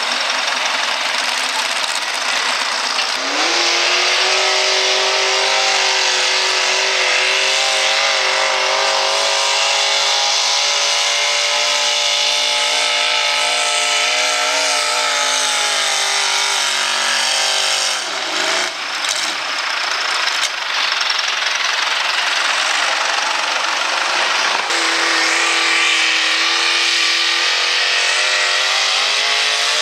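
V8 engines of hot rod pulling tractors running at high revs under load down the pulling track. The engine note climbs sharply about three seconds in and holds high, drops and breaks off about 18 seconds in, then a second engine climbs in pitch again from about 25 seconds.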